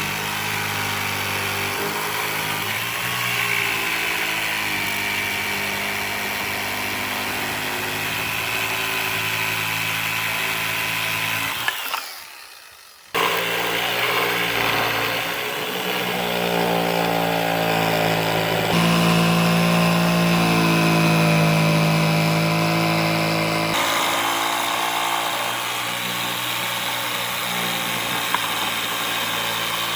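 Woodworking power tools running steadily, with a brief drop-out about twelve seconds in and several sudden shifts in pitch as the tool sound changes.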